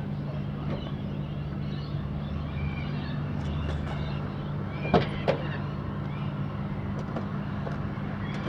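Steady low hum of outdoor urban background noise, with two sharp knocks about five seconds in, a fraction of a second apart.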